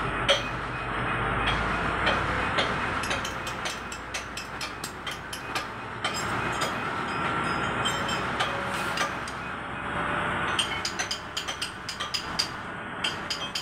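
Valve repair workshop noise: a steady rumble with frequent sharp metallic taps and clinks, coming in quick runs, of tools working on metal valve parts.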